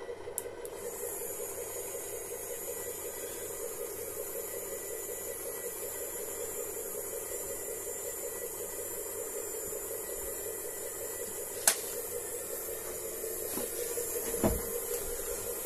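Small electric drive of a radio-controlled model tow truck's wrecker boom, running steadily as the boom is raised: a hum with a high whine over it. A sharp click comes a little after the middle, and a knock near the end.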